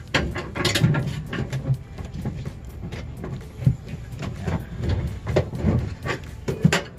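Hands working wires and a crimp connector in a freezer's sheet-metal compartment: irregular clicks, taps and light knocks of handling, with a low steady rumble underneath.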